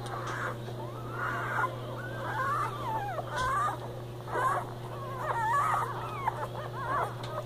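Six-day-old Portuguese Water Dog puppies squeaking and whining in many short, overlapping cries that rise and fall in pitch as they jostle against their mother to nurse.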